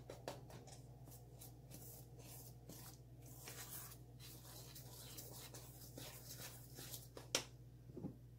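A spoon stirring thick cornbread batter in a stainless steel bowl: soft, repeated scraping strokes against the metal, with a sharper clink about seven seconds in.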